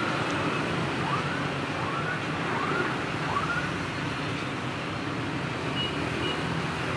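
Steady road traffic noise from motorbikes passing on a wide city road. About a second in, four short rising chirps come in quick succession, and two brief high beeps follow near the end.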